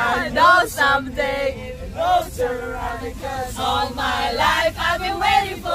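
A group of men and women singing together loudly in a van cabin, with a low road rumble underneath.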